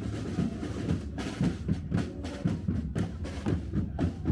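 Band music led by drums, with repeated strikes several times a second.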